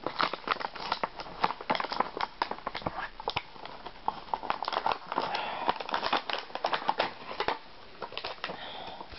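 Toy packaging of card and plastic being opened by hand: a run of irregular clicks, taps and crinkles, with a stretch of rustling about midway.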